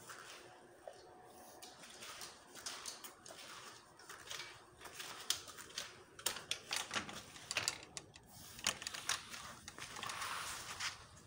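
Irregular clicks and taps, densest and loudest in the middle: a sliding glass door being opened, and a small dog's claws clicking on a hard floor.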